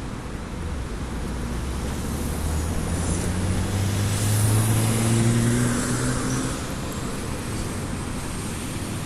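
A motor vehicle drives past: its low engine hum swells over a few seconds, the pitch creeping slightly upward, then fades away. Steady traffic noise runs underneath.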